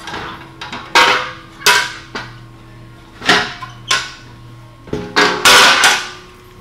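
Aluminium box truss sections clanking and knocking against each other as they are handled and stacked: a string of irregular sharp metallic hits, each with a bright ringing tail, the loudest about a second in and around five and a half seconds in. A steady low hum runs underneath.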